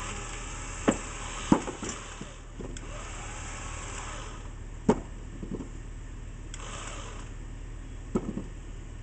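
Homemade winch-driven crane hoisting a heavy 8x8 wooden post upright: a steady mechanical running noise from the winch and Jeep, with four sharp knocks, each followed by a couple of lighter clunks, as the hanging post and rigging shift.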